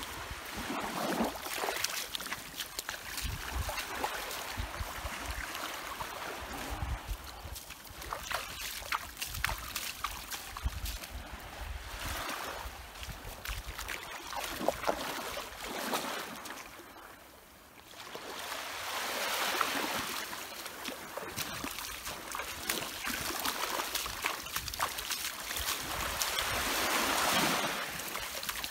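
Water sloshing and splashing as someone wades barefoot through shallow sea water, drawing a long-handled dip net through it, with small waves washing in at the shore. The sloshing comes in surges every few seconds and eases off briefly near the middle.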